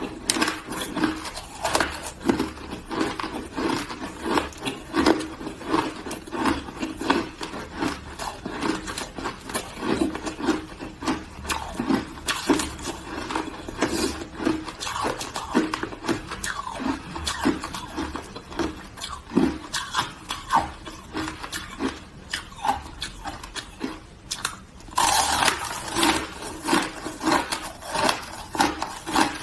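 Hard shaved ice being crunched and chewed: a dense, irregular run of crisp crunches, growing louder and denser near the end.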